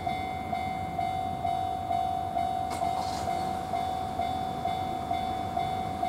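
Japanese railway level-crossing alarm ringing steadily, about two strikes a second, sounding while the barriers are down for an approaching train.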